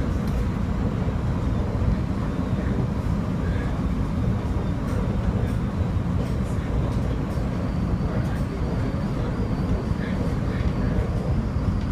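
Steady low rumble of a SEPTA Silverliner IV electric multiple-unit train running at speed, heard from inside the passenger car: wheels on rail and running gear, with faint clicks. A faint high whine joins about two-thirds of the way through.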